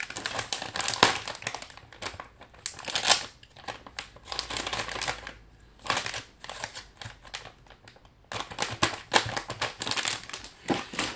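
Soft plastic pack of baby wet wipes crinkling as it is handled, with irregular sharp clicks as its round lid is opened and a wipe is pulled out.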